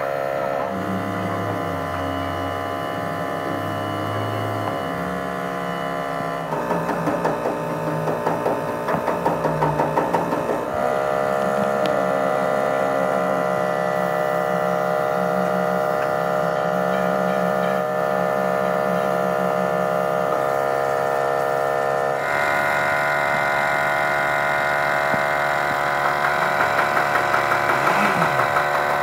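A truck's diesel engine running at idle, heard in a few clips that cut abruptly from one to the next. The sound pulses faster and louder for a few seconds about seven seconds in and again near the end.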